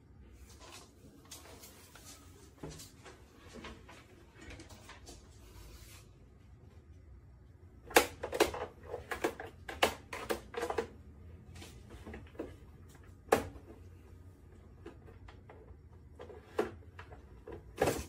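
Scattered sharp clicks and light knocks of computer parts and tools being handled during a repair, with a quick run of them about eight to eleven seconds in and single knocks later.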